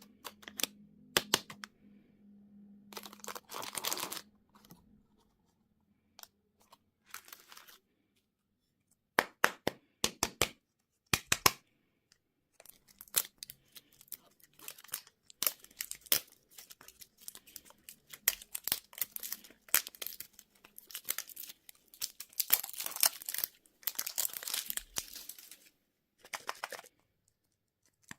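Plastic candy and toy packaging being handled and opened: wrappers crinkling and tearing, with sharp clicks and snaps, in short bursts separated by quiet gaps.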